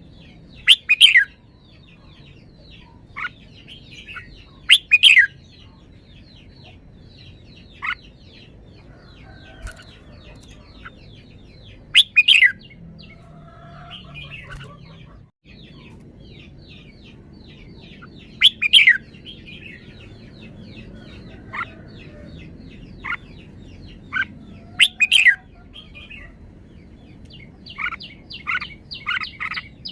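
Red-whiskered bulbul singing: loud, short whistled phrases repeated about every six seconds, over a steady faint chirping in the background. Near the end comes a quick run of short chirps.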